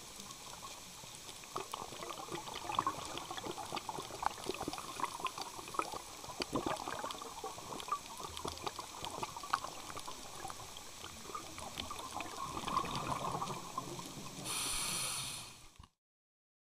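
Underwater reef sound: a dense crackle of short clicks over gurgling, watery noise. Near the end a louder rushing hiss lasts about a second, then the sound cuts off suddenly.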